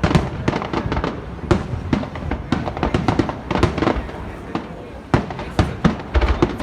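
Fireworks finale barrage: a rapid, continuous run of bangs and crackling reports with deep booms underneath, several shell bursts a second.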